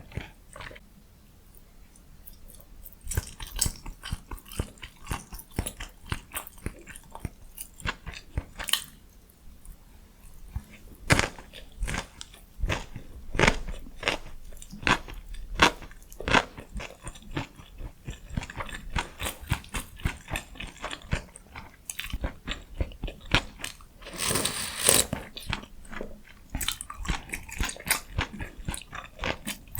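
Close-miked eating sounds: a person biting and chewing cheese kimbap and egg ramyun, with many small sharp crunching clicks and mouth sounds. There is one longer, louder noisy burst about 24 seconds in.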